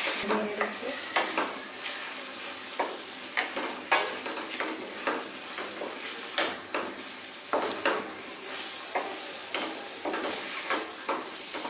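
A wooden spatula stirring thick mutton masala in a metal kadai: irregular scrapes and knocks about twice a second over a steady faint sizzle. The masala is kept moving so that it does not stick to the pan.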